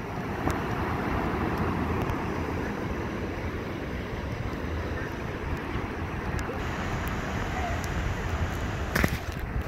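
Wind blowing across the microphone with surf breaking on the beach, a steady rushing noise with a low rumble, as a storm comes in. A sharp knock sounds about nine seconds in.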